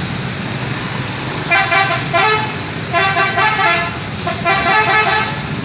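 Indonesian telolet bus horn playing three short multi-note blasts, each about a second long, over a running engine.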